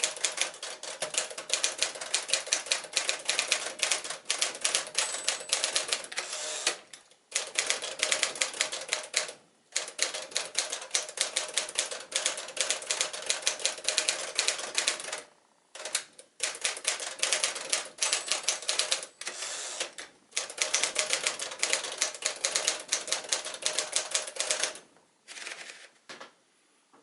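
1955 Smith-Corona Sterling manual typewriter being typed on: fast runs of sharp key strikes, broken by a few short pauses, stopping shortly before the end.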